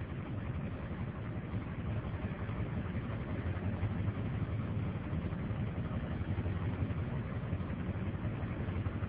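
Vehicle engine idling, heard from inside the cab as a steady low hum.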